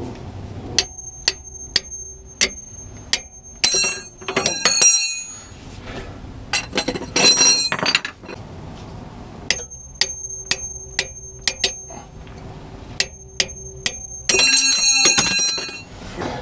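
Hammer striking a wrench on a seized bolt of a bus's air brake chamber mount to break it loose. Each blow rings sharply: two runs of strikes about half a second apart, with louder clattering bursts between them and near the end.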